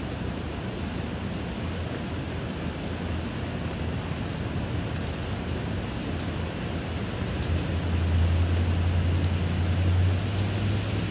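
Steady rain falling, with a low rumble of a passing car swelling about two-thirds of the way through and easing off near the end.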